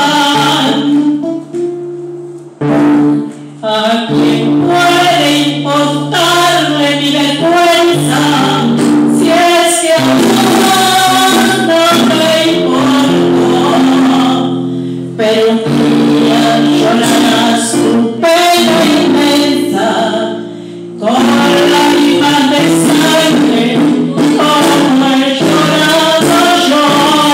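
A woman singing into a handheld microphone, amplified through a PA, over musical accompaniment with a steady bass line. The singing pauses briefly near the start and again about two-thirds of the way through.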